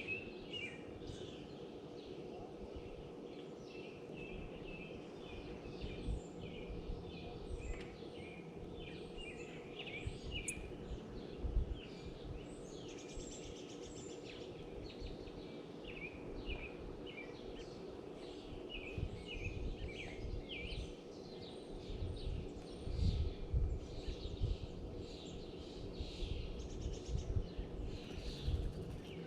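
Small songbirds chirping and calling in many short notes, over a steady low hum. Low thumps and bumps come close to the microphone in the second half.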